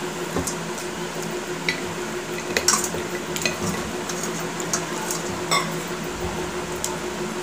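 Eating by hand from steel plates: fingers squishing and mixing rice and fish curry against the metal, with scattered short clicks and taps, the loudest a little under three seconds in. A steady low hum runs underneath.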